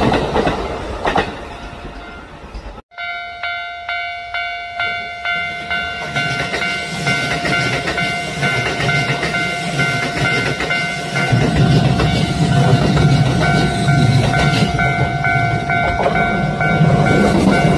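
Railway level-crossing alarm ringing in quick repeated tones, about two or three a second, coming in after a sudden cut about three seconds in. A train rumbles past from about eleven seconds in, under the alarm.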